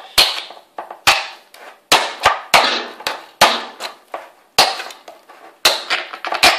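Kitchen knife point stabbed again and again into the lid of a tin can to open it: about nine sharp metallic knocks, roughly one a second, each with a short ringing tail.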